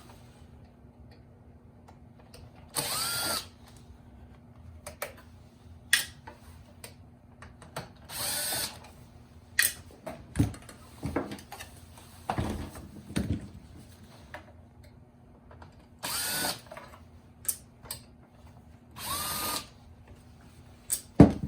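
Cordless power screwdriver run in four short bursts, each quickly spinning up to speed, backing out the Phillips screws that hold a navigation unit's plastic faceplate to its backing. Small clicks and knocks of handling the unit and screws come between, with a sharper knock near the end.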